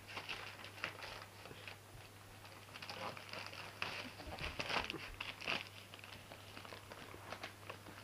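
Shiny wrapping paper crinkling and rustling as a basset hound puppy bites and tugs at a wrapped present, in short irregular bursts.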